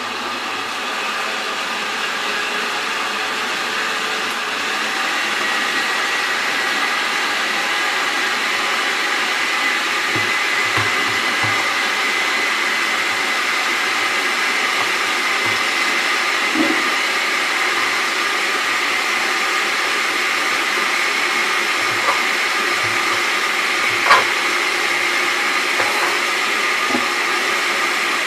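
Countertop blender running steadily, puréeing cooked spinach, hard-boiled egg, brown rice and chicken broth, its motor whine holding one pitch. A few light knocks of a knife on a cutting board come through in the second half, the sharpest a few seconds before the end.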